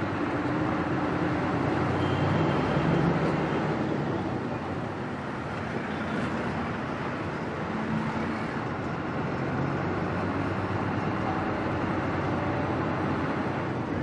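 Steady engine and road noise heard from inside a moving bus's cabin.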